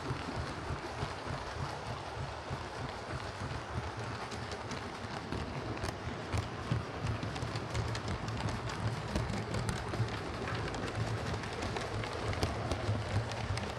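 OO gauge model steam locomotive, a Hornby LMS Stanier Class 4P, running steadily along model railway track: a constant electric motor and gear hum with a dense patter of small wheel and rail-joint clicks.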